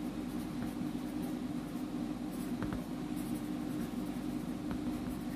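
A pen scratching as it writes, over a steady low electrical hum.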